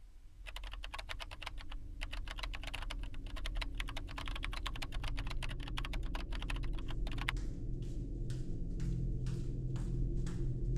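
Computer keyboard typing: a fast, dense run of keystrokes for about seven seconds, then slower, separate key presses. A low drone grows louder underneath.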